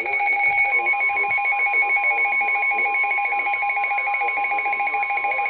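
Emergency alert tones: a rapidly pulsing two-pitch electronic alert tone, joined about a second in by a steady single-pitch warning tone of the kind a NOAA Weather Radio station sends when it activates an alert, with a faint voice underneath.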